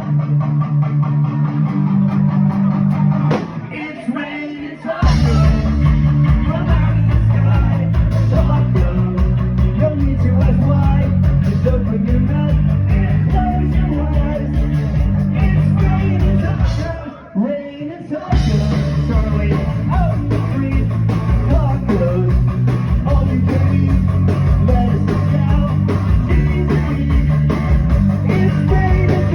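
Rock band playing with electric guitar, bass and drums. The full band drops out briefly about four seconds in and again a little past halfway, then comes back in.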